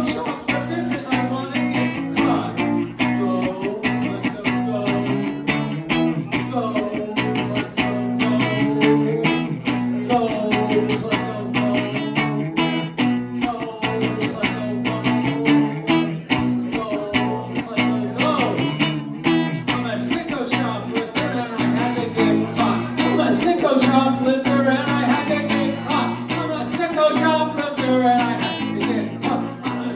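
Live band music: guitars playing over a steady beat, in an instrumental passage between sung refrains.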